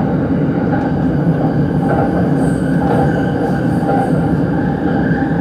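JR Utsunomiya Line commuter train running, heard inside the passenger car: a steady rumble of wheels and running gear with a faint, high, steady whine over it.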